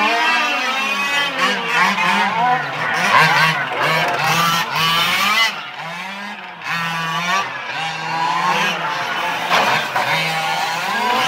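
Small two-stroke petrol engines of several 1:5-scale RC race cars, revving up and down as the cars throttle off and on through the corner, a buzzy note that keeps rising and falling.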